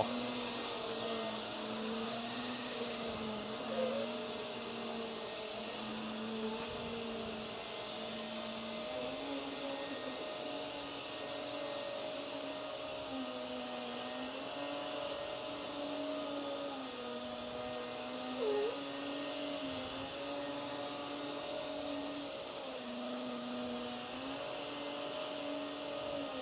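Hoover WindTunnel Tangle Guard upright vacuum running on carpet: a steady motor hum that shifts up and down slightly in pitch every second or two, with a constant high whine over it.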